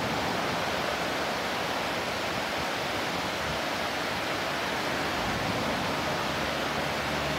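Steady rushing of river water, an even hiss that does not change.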